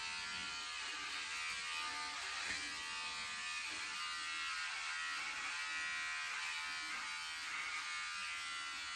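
Electric hair clippers buzzing steadily as they cut a man's hair.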